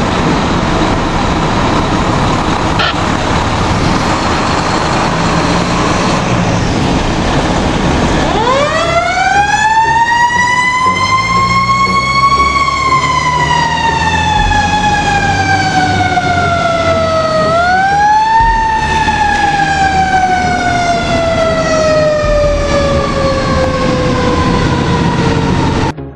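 Fire truck siren winding up about eight seconds in from a low growl to a high wail, then slowly sliding down in pitch, rising briefly once more and winding down again. Before it starts there is a loud, steady rushing noise.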